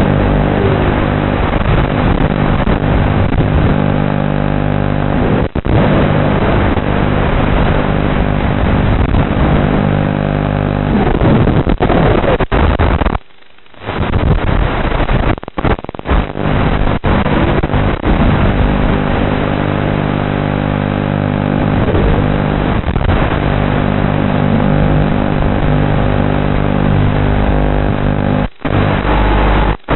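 FPV racing quadcopter's brushless motors whining steadily in flight, the pitch rising and falling with the throttle. The sound cuts out briefly a few times, around the middle and again near the end.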